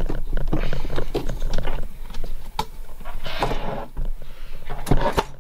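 Camera being handled and lowered, its microphone picking up irregular rubbing, bumps and clicks from a sleeve brushing against it.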